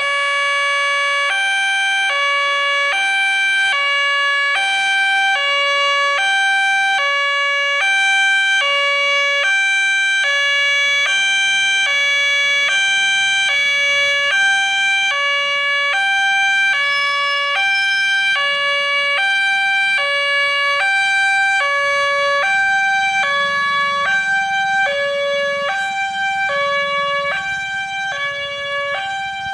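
Railway level-crossing warning siren switching on abruptly and sounding a steady two-tone wail that alternates back and forth between two pitches. This replacement unit has a common crossing tune but a harsher, raspier voice than usual.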